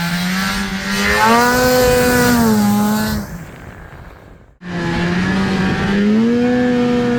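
Snowmobile's Rotax 583 two-stroke engine, swapped into a 1981 Ski-Doo Blizzard, under two bursts of throttle. Each time it holds a steady note, then rises in pitch and falls back, with a sudden break between the two about four and a half seconds in.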